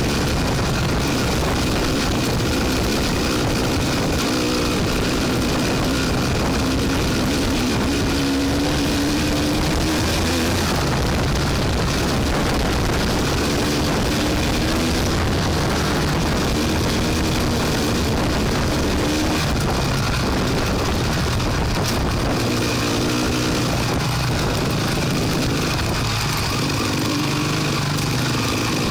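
Off-road vehicle engine running on a rough dirt track, its pitch rising and falling with the throttle, over constant rumble and wind noise from the ride.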